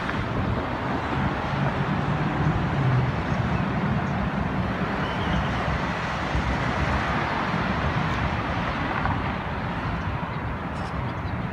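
Steady road traffic noise from cars on a multi-lane road, with no single distinct event.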